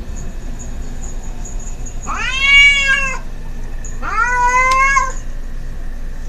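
Cats yowling at each other in a territorial threat stand-off: two long drawn-out yowls, each about a second, the second held steadier and lower.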